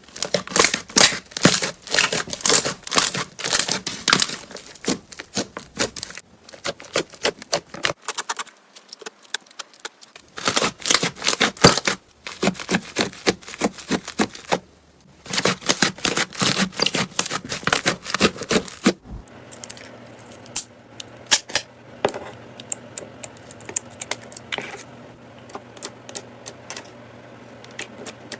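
Slime being squeezed and pressed, its trapped air bubbles popping in fast crackling runs, cut into short clips with brief pauses between them. From about two-thirds of the way in, the pops thin out to scattered clicks over a faint hum.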